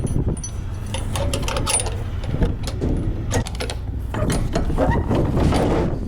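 Rapid mechanical clicking and rattling over a steady low rumble.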